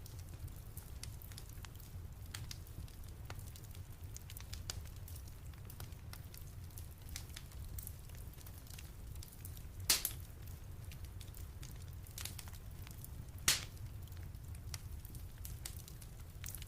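Wood fire crackling in a fireplace: scattered sharp snaps over a steady low rumble, with two louder pops about ten seconds in and again a few seconds later.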